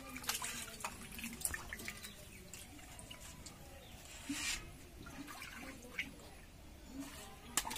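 Hands washing small fish in a stainless-steel bowl of water: water sloshing and dripping, with fingers and fish knocking against the bowl. About four and a half seconds in there is a short rush of water as it is tipped out of the bowl.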